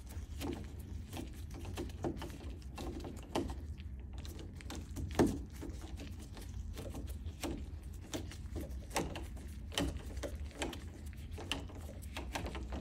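Hand screwdriver turning a long doorknob mounting bolt through the knob's rose into the other side: irregular small metallic clicks and scrapes as the bit works in the screw head, with one louder knock about five seconds in, over a low steady hum.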